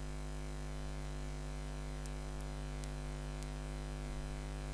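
Steady electrical mains hum with a buzz of evenly spaced overtones, with a few faint ticks in the middle.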